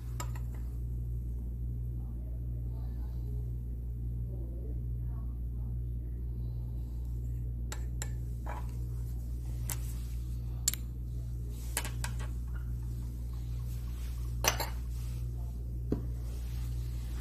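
Glassware clinking and tapping several times, a glass graduated cylinder knocking against the rim of a glass volumetric flask as a small volume of sodium hydroxide solution is poured in and the glassware is handled. A steady low room hum runs underneath.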